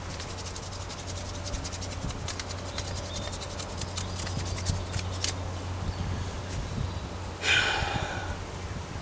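Knife blade shaving thin curls down a wooden stick to make a feather stick: a quick run of short scraping strokes through the first half, then fewer. A brief louder sound about three-quarters through.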